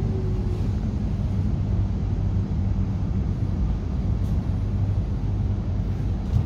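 Electric suburban train standing at the platform, giving a steady low hum and rumble. A faint falling whine dies away in the first half-second.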